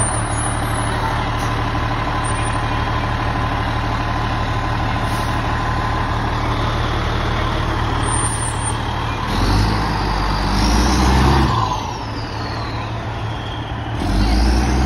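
Fire engine's diesel engine running steadily close by, then revving louder about nine seconds in as the truck pulls off, with a high whine that rises and then falls; it revs up again near the end.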